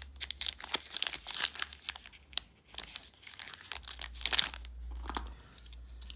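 Foil wrapper of a 2019-20 Donruss Optic basketball card pack being crinkled and torn open by hand: a run of sharp crackles, then a louder rip a little after four seconds.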